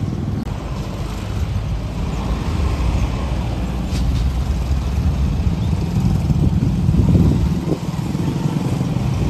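Low, steady rumble of passing road traffic, vehicle engines running, swelling to its loudest about seven seconds in.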